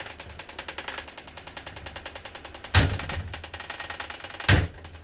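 Running broken box fan clattering rapidly, its blades striking something inside the grille. Two loud bangs come about three and four and a half seconds in.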